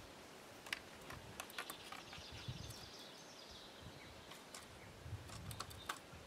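Faint small clicks and soft knocks of fishing tackle being handled as a rod's line and rig are worked by hand, over quiet outdoor ambience. A faint high hiss rises and fades near the middle.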